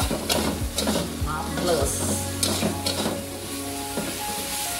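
A metal spatula scrapes and clatters against a wok, about twice a second, as fermented shrimp (cencaluk) and egg sizzle while being stir-fried.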